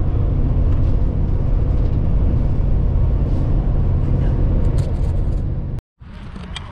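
Steady low rumble of a vehicle driving on the road. It cuts out abruptly near the end, and after a brief gap a quieter rumble carries on.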